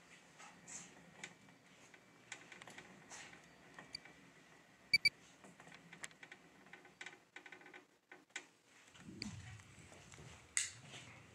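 Faint handling noise of a phone camera being carried through a quiet room: soft rustles and scattered light clicks, with one sharp double click about five seconds in and a low rumble near the end.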